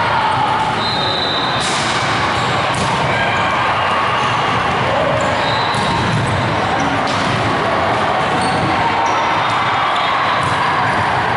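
Busy gymnasium din: volleyballs being struck and bouncing on a hardwood court, several sharp smacks spread through a steady murmur of many voices, with a few short high squeaks echoing in the large hall.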